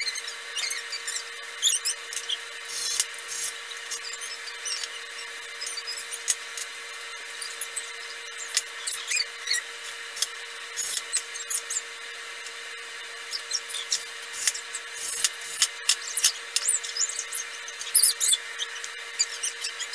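Scattered clicks and short high squeaks of hinge hardware and screws being handled and driven into a wooden cabinet door with a small cordless screwdriver.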